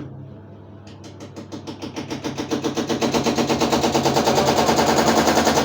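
Washing machine on its spin cycle, making a fast rattling knock several times a second that builds louder over the first few seconds and then holds steady over a low hum. The owner questions whether this spin noise is normal.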